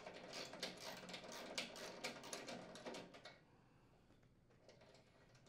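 Socket ratchet clicking quickly as a 7/16 inch nut is spun off a bolt; the clicking stops about three seconds in, leaving a few faint taps.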